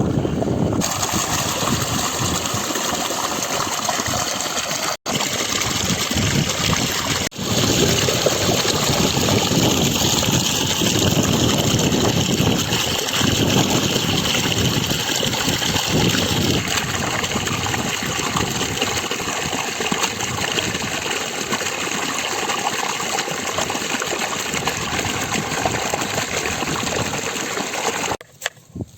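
Water running and splashing steadily while raw chicken pieces are rinsed in it, with two brief cut-outs about five and seven seconds in; the water sound stops about a second before the end.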